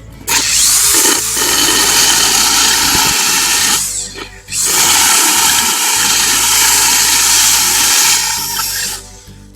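Foster FSD-010 corded drill boring into a ceramic tile: the motor runs with the harsh grinding of the bit in the tile, in two long spells with a short break about four seconds in.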